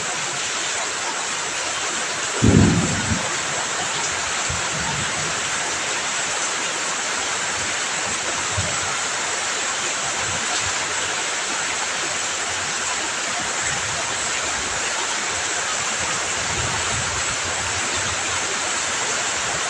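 Heavy rain falling steadily, a dense even hiss. About two and a half seconds in there is one brief low thump, the loudest moment, with a few fainter low thuds later on.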